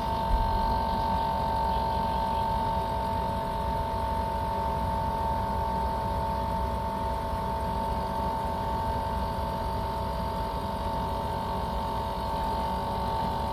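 R-410A air conditioner's outdoor condensing unit running steadily: compressor and condenser fan, a constant hum with a high steady whine.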